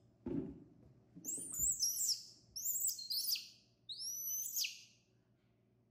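Baby macaque giving a run of about five high-pitched squeals, each rising then falling in pitch, with a short low thump just after the start.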